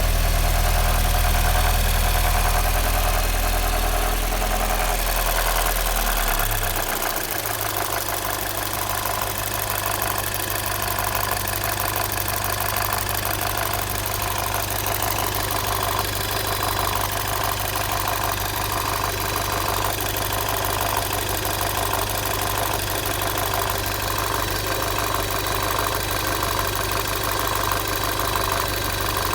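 Volkswagen Passat B6's 2.0 FSI four-cylinder petrol engine idling with an extraneous noise that the owner cannot trace. About seven seconds in the engine speed drops and it settles into a steady idle.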